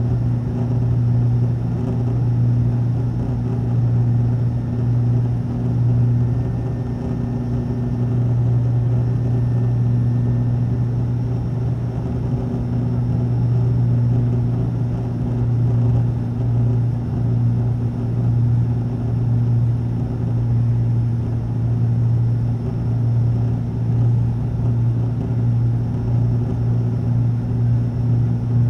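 Cabin drone of an ATR turboprop airliner in flight or on the runway: a steady low propeller hum with a second tone above it, over an even rush of air and engine noise that wavers slightly in loudness.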